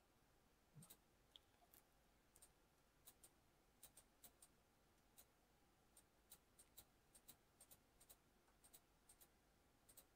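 Near silence broken by faint, irregular computer-mouse clicks, about two or three a second.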